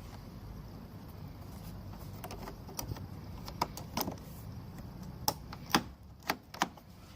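Repaired car door handle and latch being worked: a string of sharp, irregular clicks, about eight, over a steady low background hum.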